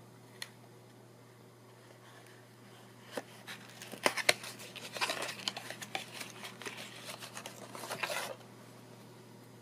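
A small cardboard box being opened by hand: a couple of sharp clicks, then rustling and scraping as the powder jar is slid out of it, stopping abruptly a little after eight seconds in.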